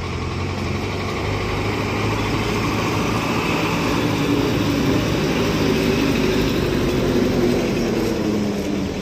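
Passenger bus engine running as the bus drives past, a steady hum that grows louder as it comes close and eases off near the end.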